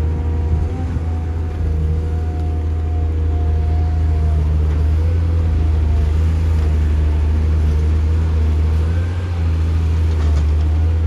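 Heavy diesel construction machinery running steadily at a constant engine speed, a deep low hum with a faint wavering whine above it.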